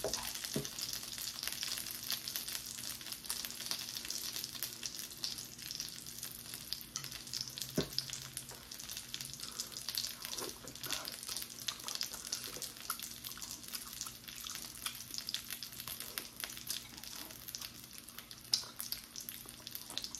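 Kimchi dumplings frying in oil in a frying pan, a steady crackling sizzle, with a few sharper clicks and a faint low hum underneath.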